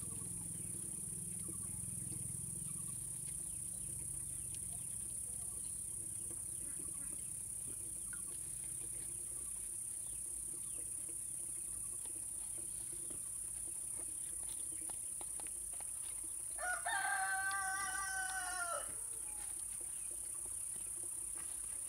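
A rooster crows once, a single drawn-out call of about two seconds, late in the stretch, over a steady high-pitched buzz of insects.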